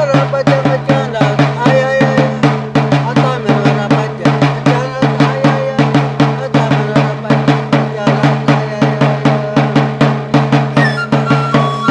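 Background music with a quick, steady drumbeat and a steady low bass note under a melody.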